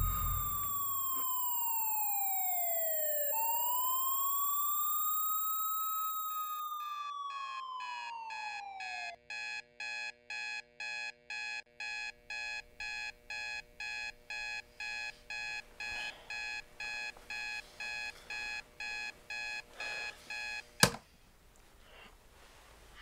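A sweeping electronic tone glides down, then up and down again; then a digital alarm clock beeps in a steady pulse, a little under two beeps a second, until a sharp knock near the end cuts it off.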